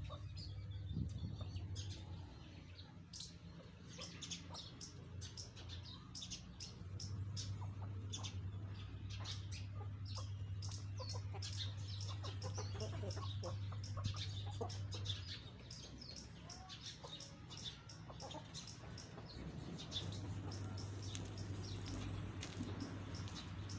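Domestic hens and a rooster clucking softly as they forage, among many short, high-pitched chirps.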